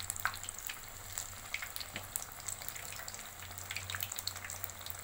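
Batter-coated green chillies (mirchi bajji) deep-frying in hot oil in a kadai: a steady sizzle with many small pops and crackles. This is their second fry on high flame, which crisps the outer coating.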